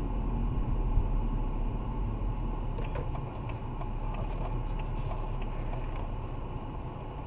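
Car interior road and engine noise picked up by a dashcam's microphone, a steady low rumble easing slightly as the car slows. From about three to six seconds in come a series of light ticks, roughly three a second.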